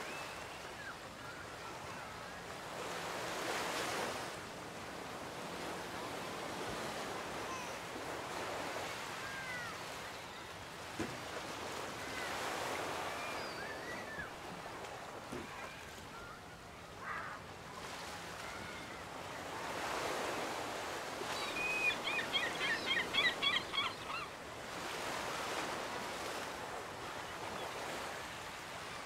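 Waves washing onto a beach, the surf swelling and easing every several seconds. Short bird calls sound here and there, with a quick run of high calls about two-thirds of the way through that is the loudest sound.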